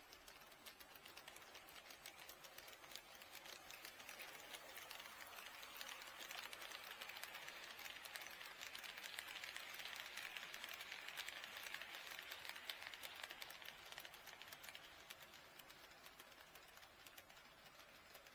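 HO scale model train running past on the track, a rapid fine clicking and rattling of wheels on rail that grows louder toward the middle and fades away.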